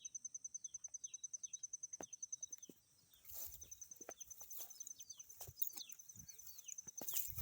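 Birds chirping in short, quick downward notes, over a rapid, even, high-pitched pulsing trill that breaks off about a third of the way in and returns faintly near the end.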